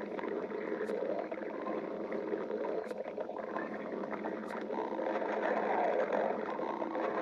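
A person's stomach growling: a continuous rumbling, gurgling churn that grows a little louder about five seconds in.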